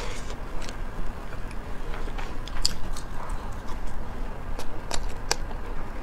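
Close-miked chewing of sticky sweet and sour pork ribs and rice, with scattered sharp clicks and smacks from the mouth and chopsticks.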